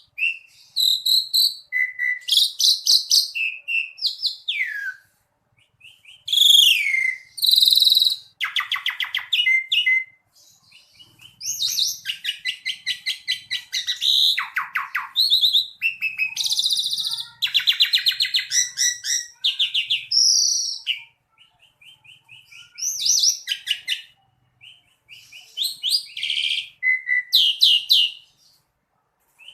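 Asian pied starling (jalak suren) singing a loud, varied song: clear whistles, harsh chattering notes and fast rattling runs, in bursts broken by short pauses.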